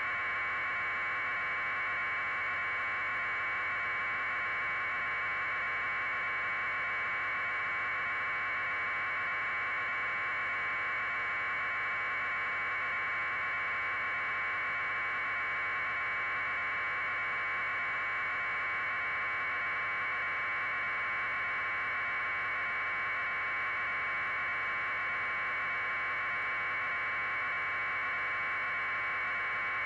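Steady, unchanging hiss, pitched in the middle range, with no other sound in it.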